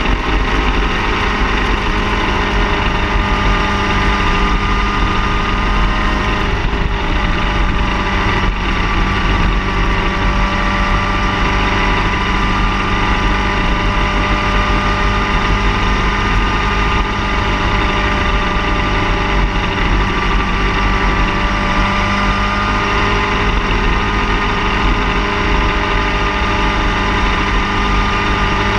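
Car engine running steadily: a constant drone with a low rumble and tones that drift slightly in pitch.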